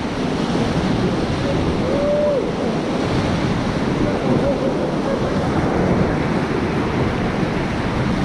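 Steady rushing roar of whitewater rapids churning and breaking around an inflatable raft.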